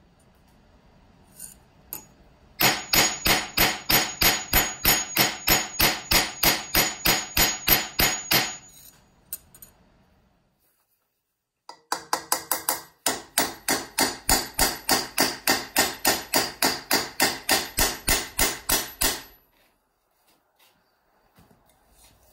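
Hand hammer striking copper work on steel: a run of rapid, even metallic strikes with a high ring, about three a second. After a pause a second run at the same pace follows.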